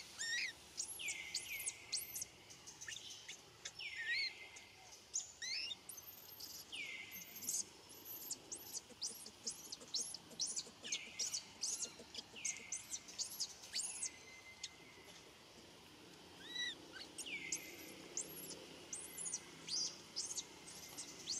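Baby macaque screaming for its mother: many short, high-pitched squeals in quick succession, some sliding down in pitch and trailing off, repeated throughout.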